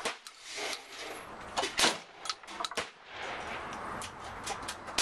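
Shotgun firing buckshot: sharp shots, one just after the start and the loudest a little under two seconds in, with lighter clicks and clatter between and after.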